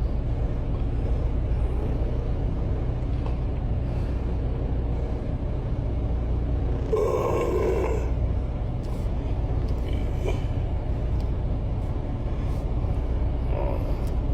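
Steady low drone of a semi-truck's engine running, with a short mid-pitched sound about seven seconds in.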